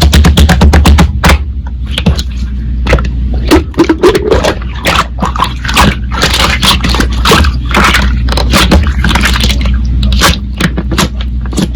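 Slime being squished and pressed by hand: a dense run of crackling pops and squelchy clicks.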